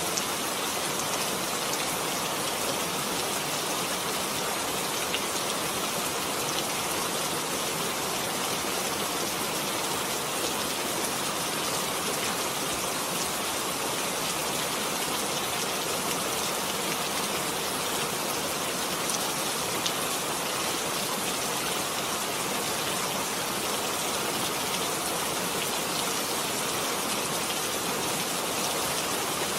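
Steady rainfall, a dense even patter of drops falling on surfaces.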